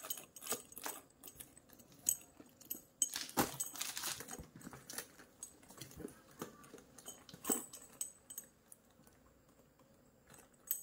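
Small metal fittings on a handbag, its clasp, strap buckles and hardware, clinking and ticking irregularly as the bag is turned over and handled; the clicks thin out near the end.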